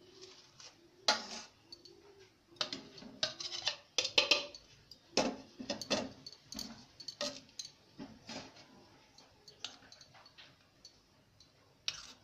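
Steel spoon clinking and scraping against a small stainless-steel bowl as turmeric powder is spooned into hot water and stirred to dissolve it: irregular sharp clinks, busiest in the first half.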